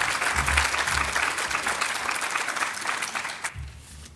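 Audience applauding, a dense clatter of many hands that dies away about three and a half seconds in.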